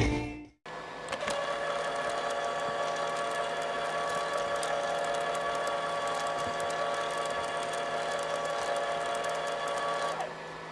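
Brother P-touch label maker printing and feeding out a label tape: a steady small-motor whine with fine ticking that starts about a second in and stops shortly before the end.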